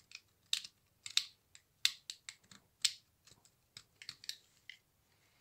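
Irregular short, sharp scratching clicks, about a dozen, as the enamel is scraped off a generator stator's winding wire; they stop a little before the end.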